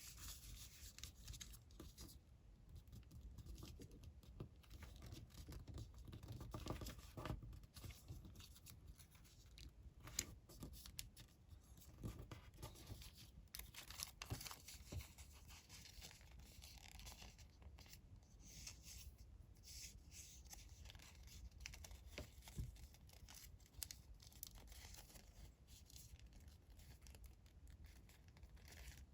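Colored origami paper being folded and creased by hand: soft, scattered rustles, crinkles and scrapes of paper, with small clicks as folds are pressed down.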